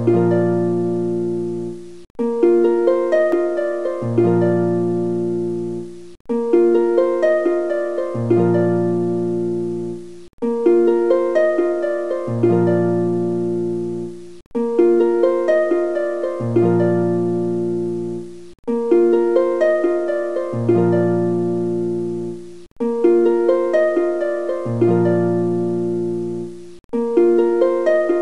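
Background music: a short plucked-string melody looping about every four seconds, with a brief break between each repeat.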